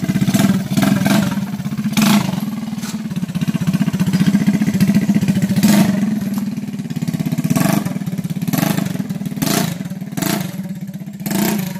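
Engine of a motorcycle plow built on an SYM underbone motorcycle, running through a loud replacement exhaust. It holds a steady running note and lets out about ten short sharp bangs at irregular intervals as the throttle is blipped.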